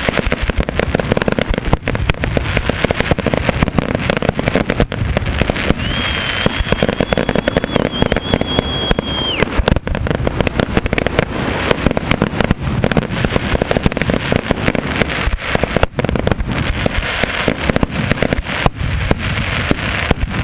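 Fireworks display going off without pause: a dense, continuous barrage of bangs and crackling. About six seconds in, a steady high whistle from a whistling firework is held for three or four seconds, then cuts off.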